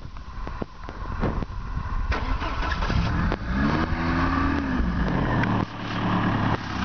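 Fuel-injected 2.4-litre four-cylinder engine of an Opel GT, still warming up, firing up after some clicking. It revs up and back down once, dips about a second later, then settles into a steady idle near the end.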